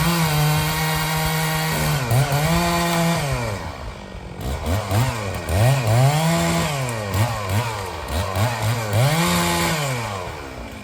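Chainsaw held at high revs for about two seconds, then revved up and down about five times, with the engine note rising and falling each time. It drops away near the end.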